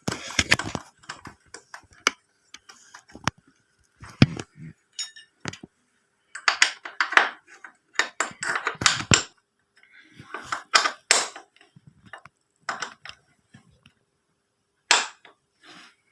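Metal hand tools and a nut and bolt clinking and scraping as a nut is fitted to hold a motorcycle's rectifier regulator bracket: scattered sharp clicks with two longer clattering bursts in the middle.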